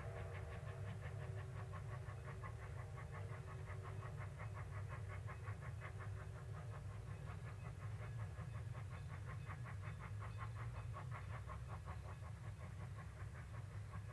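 Steam locomotive working along with a rapid, even chuffing from its exhaust over a steady low rumble. A whistle fades out in the first second.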